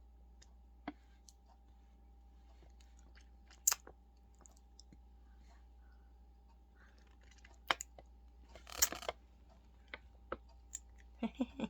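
Scattered small clicks and a brief rustle from handling a lipstick and its packaging, the sharpest click about four seconds in, over a faint steady hum.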